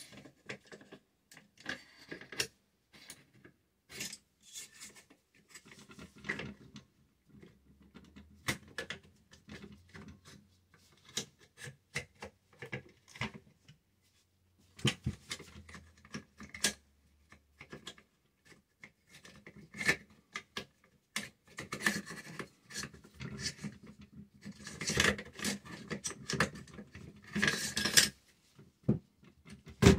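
Metal parts of a Smith & Wesson M&P15 AR-15 upper receiver being handled. Scattered clicks, light clatter and scraping as the charging handle and bolt carrier group are worked, denser and louder in the second half.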